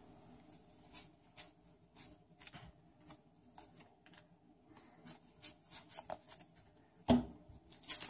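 Yu-Gi-Oh! trading cards being handled and flipped through: a string of soft, irregular card snaps and slides, with a louder thump about seven seconds in.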